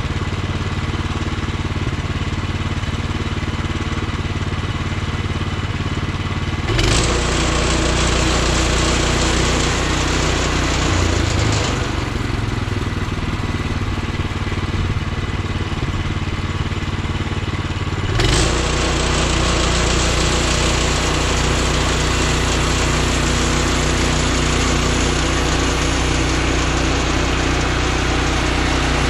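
Gas engine of a Woodland Mills HM126 portable bandsaw mill running at low speed, then throttled up sharply about a quarter of the way in to a louder, hissing run. It eases a little, then is throttled up again just past the middle and holds there.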